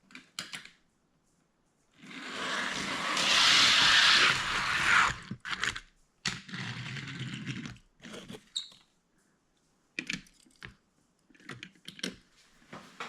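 Die-cast toy cars rolling down a plastic track: a rushing rumble that builds for about three seconds, then a shorter, quieter run, with scattered clicks and knocks of the cars being handled.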